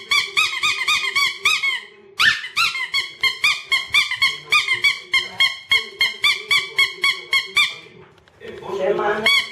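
Bicycle horn honked over and over in quick squeaky blasts, about four a second, with a short break about two seconds in. The honking stops near the end, and a longer, lower rising sound follows.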